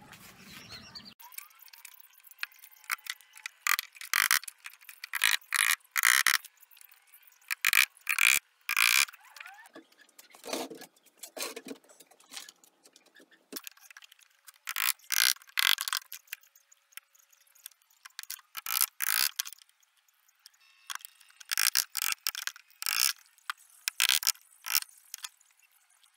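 Thin wooden strips handled and fitted into a frame on a wooden workbench: irregular clusters of short clicks, knocks and scrapes of wood on wood.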